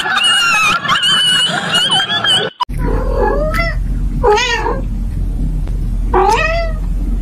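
A cat meowing: three drawn-out meows, each rising and then falling in pitch, the first one weaker, over a steady low hum. Before them, a high wavering voice-like sound cuts off abruptly about two and a half seconds in.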